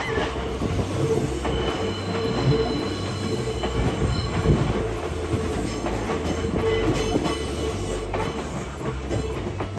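A Kintetsu Minami-Osaka Line electric train running through a sharp curve, its wheels squealing against the rails in a steady tone, with the clatter and knocks of the wheels over the rail joints.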